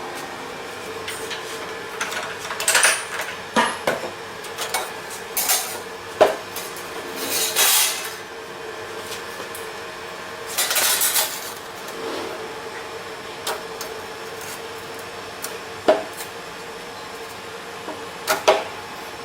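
Irregular metallic clinks and knocks with two longer scraping sounds, over a steady low hum: steel pieces and tools being handled in saw blade making.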